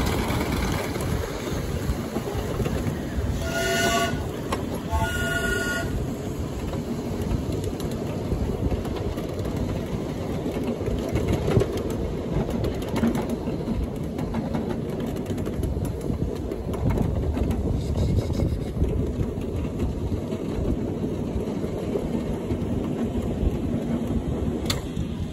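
Ride-on miniature railroad train running along the track with a steady rumble, and two short whistle blasts about four and five seconds in.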